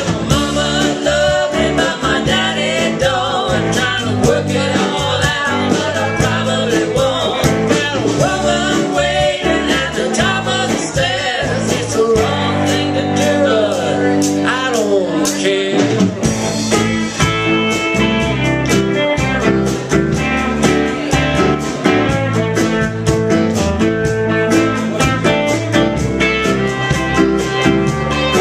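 Live band playing an instrumental break in a bluesy country-rock song, with a lead line bending over guitar and a steady beat.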